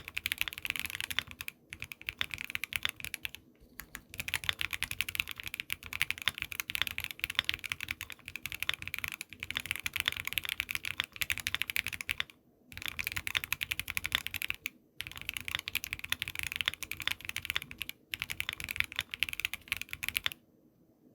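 Fast typing on a mechanical keyboard with stock Everglide V3 Water King linear switches, factory lubed with 67 g springs, under Infinikey keycaps on a polycarbonate plate. The key clicks come in quick runs with short breaks and stop near the end.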